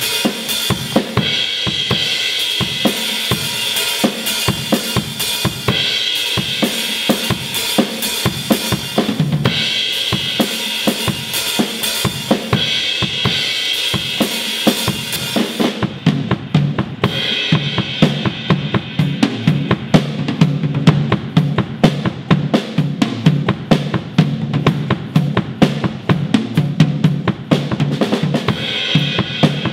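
Acoustic drum kit played with sticks in fast, dense patterns: drums and cymbals together for about the first half, then from about halfway the cymbals fall silent and quick strokes on the drums carry on alone, with cymbals coming back in near the end.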